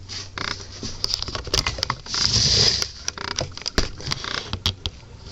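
Plastic Transformers Voyager-class Megatron figure being handled and transformed: its joints and panels give irregular clicks and rattles as parts are moved and pushed into place. There is a louder rubbing rush a little over two seconds in.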